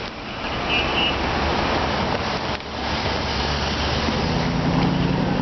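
Cars passing close by one after another on a road, with tyre and engine noise. A low engine hum swells from about four seconds in as the next car comes past.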